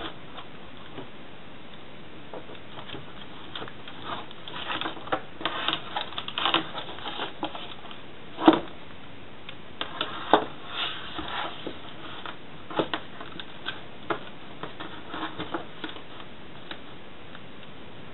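Irregular small taps, clicks and rustles of hands handling paper, a pen and a ruler on a worktable, with a sharper knock about eight and a half seconds in and another about ten seconds in.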